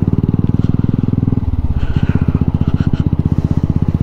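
Motorcycle engine running with a steady, rapid exhaust beat while being ridden; the note shifts briefly about a second and a half in.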